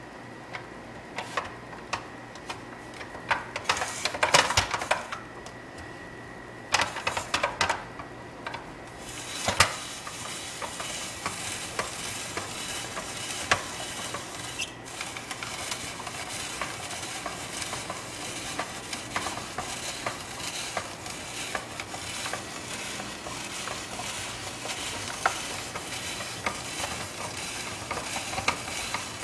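Plastic clicks and knocks as a zucchini is fitted onto a hand-crank spiralizer, then, from about ten seconds in, a steady crackling as the crank is turned and the blade cuts the zucchini into noodles.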